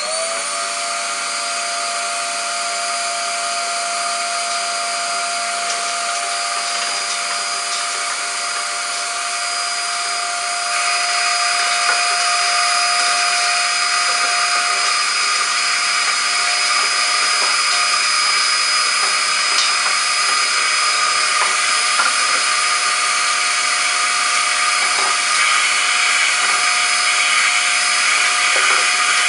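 Nutool ash vacuum cleaner's 500 W motor switching on, spinning up quickly and running at a steady high whine as its hose nozzle sucks ash from a wood stove's firebox. About ten seconds in, the airflow noise gets louder and hissier, with a few faint ticks.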